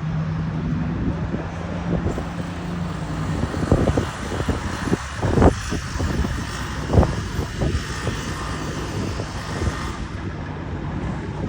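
Heavy truck's engine and exhaust running as it goes by, a steady engine note fading about three seconds in, then a rough low rumble with a few sharp thumps.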